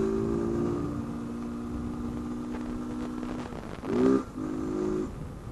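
Honda CG 160 Fan's single-cylinder four-stroke engine running loudly with its air-intake hose removed, holding a steady note. There is a brief rise in revs about four seconds in.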